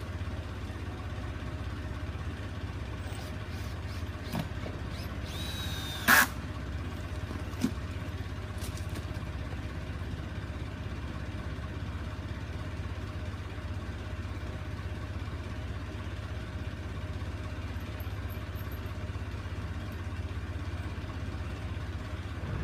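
Small diesel locomotive idling as a steady low hum. About six seconds in there is one sharp metallic clink, with lighter knocks a little before and after it.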